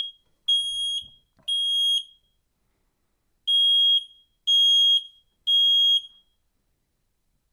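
Smoke detector's test alarm, a single shrill tone repeated in half-second beeps in groups of three with a pause between groups (the temporal-three evacuation pattern), stopping about six seconds in. This is the unit's test sequence, showing that the freshly installed 9-volt battery is working.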